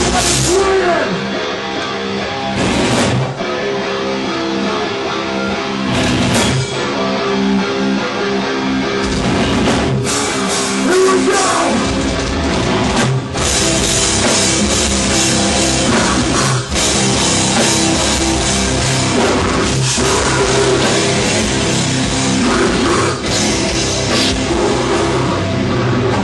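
Death metal band playing live at full volume: heavy distorted guitars and a pounding drum kit, with short stop-start breaks every few seconds. The deep bass end fills in fully about nine seconds in.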